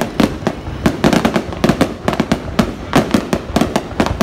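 Aerial fireworks bursting overhead in a rapid, irregular barrage of sharp bangs, several a second.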